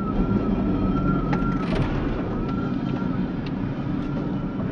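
Engine and road rumble of a vehicle driving on an icy road, heard from inside the cab. A faint high tone rises and falls over and over on top of it.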